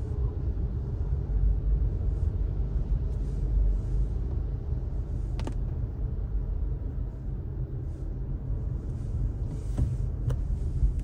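Steady low rumble of a car driving on wet city streets, road and tyre noise with a faint hiss of spray, broken by two sharp clicks about five and ten seconds in.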